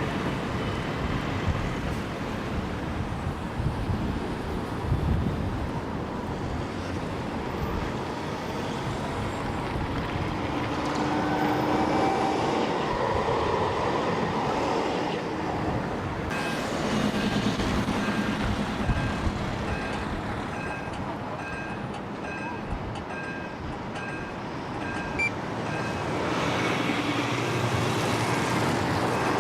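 City street traffic, with vehicles passing in swells. From about halfway, a high electronic beep repeats steadily, about one and a half times a second, for around ten seconds.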